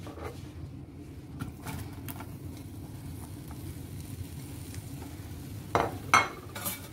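Chopped onions going into hot olive oil in a non-stick wok and frying with a light sizzle, with a few soft taps in the first couple of seconds. Near the end come several sharp knocks and scrapes of a spoon against the pan, the loudest sounds.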